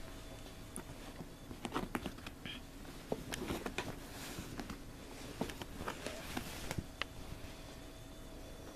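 Faint, scattered light taps and rustles of a kitten and a hand handling a small cat toy at close range, dying away near the end.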